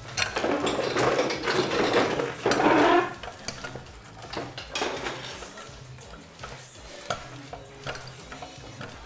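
Clattering and scraping, loudest and busiest in the first three seconds, then scattered light knocks and clinks.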